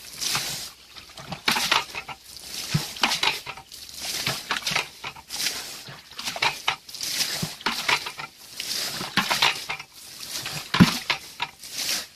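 A plastic bucket bailing muddy water out of a shallow pool: repeated scoops and splashing throws, roughly one every second or so, with knocks of the bucket.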